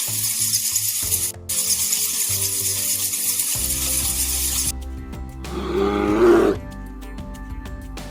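Background music over a steady hiss, then about five and a half seconds in a big cat's roar lasting about a second.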